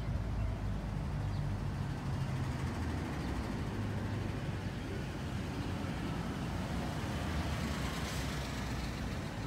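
Steady low rumble of open-air background noise with no distinct events.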